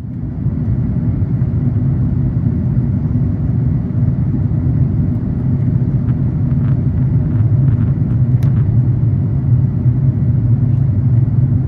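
Steady low rumble inside the cabin of an Airbus A350-900, from its Rolls-Royce Trent XWB engines and the airflow, with a few faint clicks and rattles partway through.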